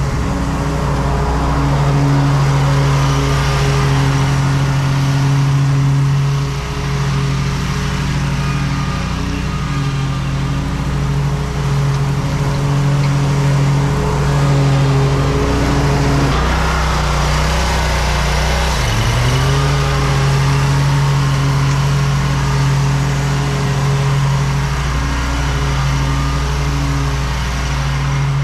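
Lawn mower engine running steadily at full throttle while cutting grass. About two-thirds of the way through its pitch sags for a couple of seconds, then comes back up.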